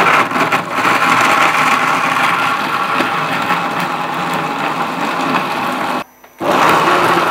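Orpat 1200 W mixer grinder motor running at full speed, mincing raw meat in its steel jar. It cuts out for a moment about six seconds in, then starts again.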